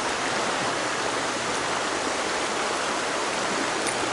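Shallow river running steadily over a stony bed, an even rushing of water.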